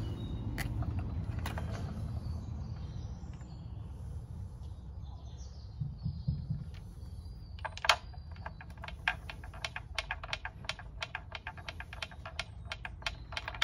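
Ratchet wrench clicking in quick, uneven runs as the spark plugs are unscrewed from an outboard engine, starting a little past halfway. Before that there are only a few single clicks over a low rumble.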